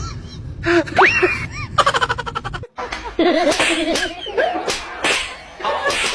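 A short squeal that rises sharply in pitch and a buzzy stretch, then, after a sudden break, people laughing.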